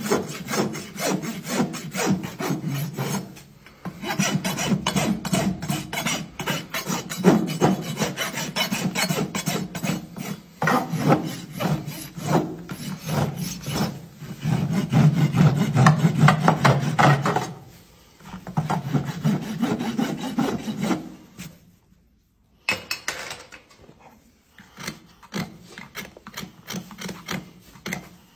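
Farrier's rasp filing a horse's hoof in long runs of quick back-and-forth strokes, broken by short pauses. About three quarters of the way through the rasping stops, leaving only softer scattered scrapes.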